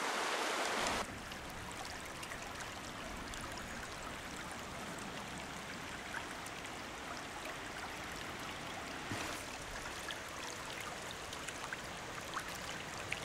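Shallow rocky river running, a steady rush of water that drops in level about a second in.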